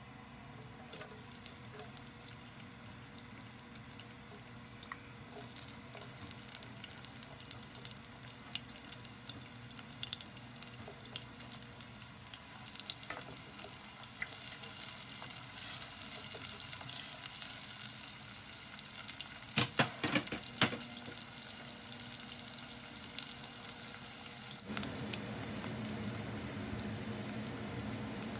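Chopped red onions sizzling and crackling as they fry in hot oil in a pot, being stirred with a silicone spatula. The sizzle starts about a second in and grows fuller, with a few sharp knocks about two-thirds of the way through.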